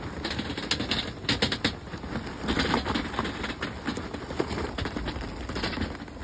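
Charcoal briquettes pouring out of a paper bag and clattering onto a steel mesh charcoal grate and the lit coals beneath: a dense, uneven run of hard clicks and knocks.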